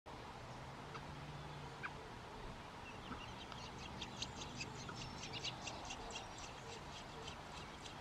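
American robin nestlings begging for food with a rapid run of short, thin, high-pitched peeps, starting about three and a half seconds in as the parent arrives to feed them.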